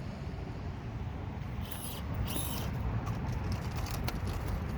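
Axial SCX24 micro RC crawler scrabbling on dirt after tipping over: two short hissy bursts about two seconds in, then a run of light clicks and ticks, over a steady low rumble.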